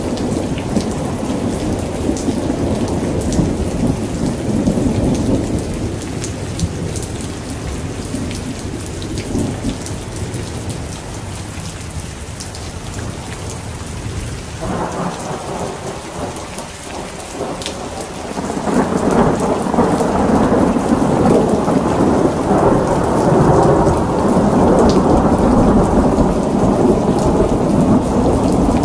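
Heavy rain hissing steadily under long rumbles of thunder. The rumble eases off in the middle, then a new peal swells up about two-thirds of the way in and stays loud.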